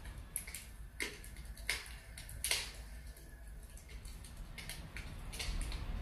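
Wood fire crackling in a fireplace: sparse, irregular pops and snaps over a low steady rumble, the loudest pop about halfway through.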